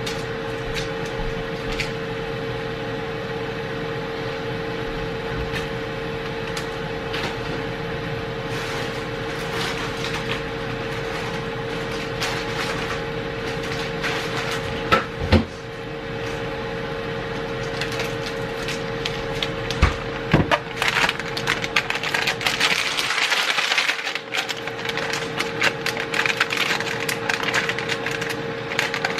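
Air fryer running with a steady fan hum, overlaid with scattered clicks and knocks of kitchen utensils and a stretch of scratchy scraping near the end.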